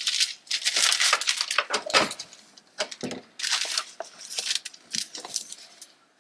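Wax paper and book pages rustling and crinkling in irregular bursts as pressed flowers are handled and laid into a book.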